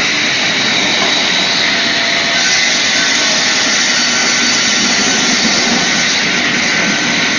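Sliding table saw running steadily at speed, a loud even whirring hiss that gets a little brighter about two and a half seconds in.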